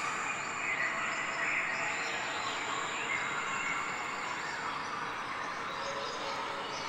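Steady outdoor nature ambience: many birds chirping over a constant high hiss.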